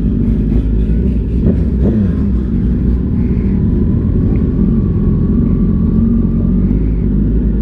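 Suzuki Hayabusa's inline-four engine running steadily at low revs as the bike rolls slowly at walking pace.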